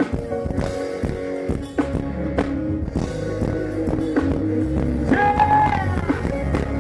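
Live band playing an instrumental passage of a pop song, with a held, wavering high note about five seconds in.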